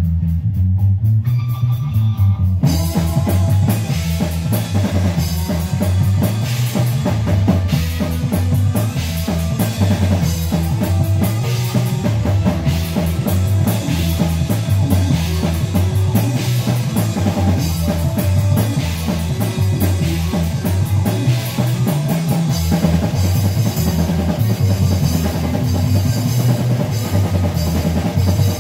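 Live rock band playing an instrumental passage: the electric bass line carries alone over light, even ticks, then the drum kit and electric guitars come in together about two and a half seconds in and play on at full volume.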